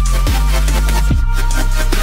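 Electronic music with a steady deep sub-bass and kick drums whose pitch drops sharply, with held synth notes above.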